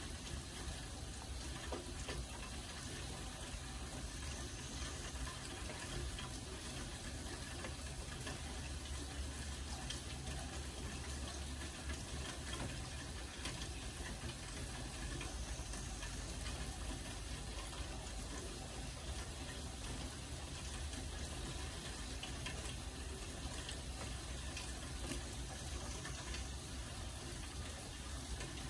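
Steady rain falling, an even hiss of noise with scattered faint drop ticks.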